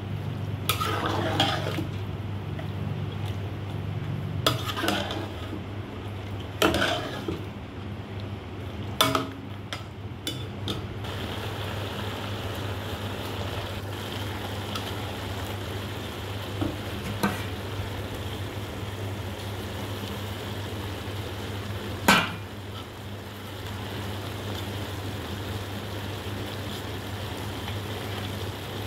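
A spoon scraping and knocking against a large metal pot as rice and mutton are stirred in boiling stock, then the pot bubbling steadily as the rice cooks down in the liquid. A few more knocks of the spoon on the pot, the loudest about two-thirds of the way through, over a low steady hum.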